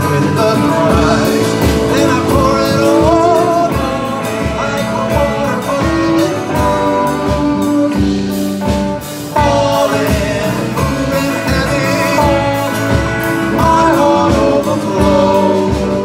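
Live folk-rock band jamming: violin, acoustic and electric guitars, bass, drum kit and hand percussion playing together over a steady beat, with a melody line sliding in pitch above.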